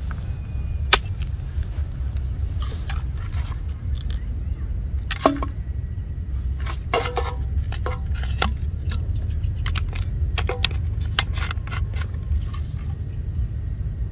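Small plastic bottles clicking and crackling as they are handled, with scattered ticks and crinkles, the sharpest about a second in and about five seconds in, over a steady low rumble.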